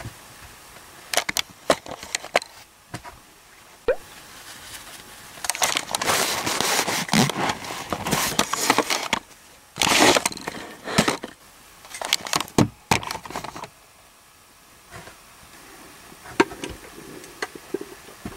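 Handling noise: scattered clicks and knocks with bursts of rustling as fabric and hands brush close to the camera's microphone.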